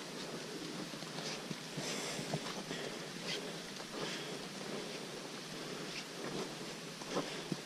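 Footsteps on a muddy dirt trail and timber steps, a scattering of soft irregular treads, over a steady background hiss.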